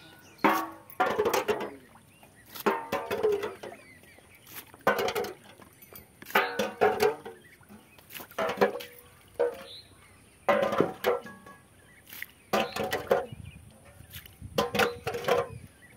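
A steel plate scraping and scooping water out of a cement cattle trough, stroke after stroke. Short clanking scrapes with a brief metallic ring come in pairs about every one and a half to two seconds.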